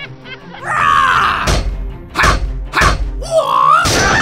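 Cartoon hit sound effects over background music: four thuds as a toy excavator's arm whacks a toy truck, the last the loudest, with a wavering groan-like effect before the first and before the last.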